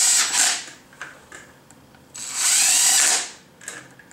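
DeWalt cordless drill/driver spinning clutch pressure plate bolts down in short runs of about a second, each with a rising whine. One run ends just after the start and another comes about two seconds in. Faint clicks in between as the bit is moved from bolt to bolt.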